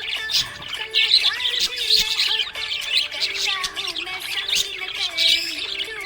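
Pet budgerigars chirping and squawking continuously in quick, overlapping high calls.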